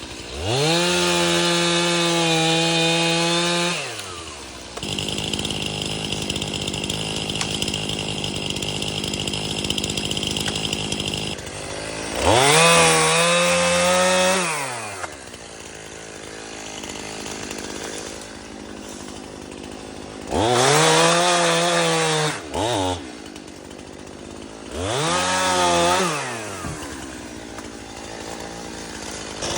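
Stihl MS-291 two-stroke chainsaw throttled up to full speed four times for two to three seconds each, dropping back to a steady idle in between.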